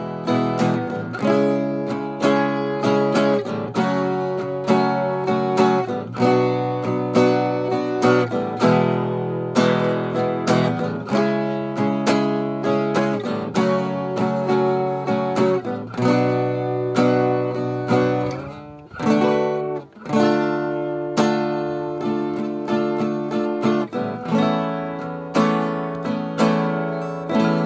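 Background music of a strummed acoustic guitar playing chords in a steady rhythm, with a brief dip about two-thirds of the way through.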